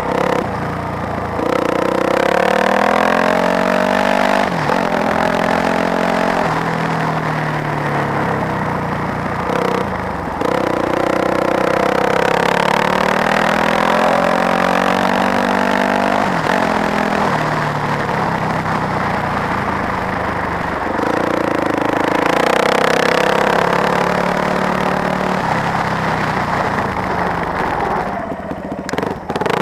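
A 2002 Yamaha YZ426F's four-stroke single-cylinder engine running under throttle, its pitch repeatedly climbing and then dropping at each gear change. The throttle eases off briefly near the end.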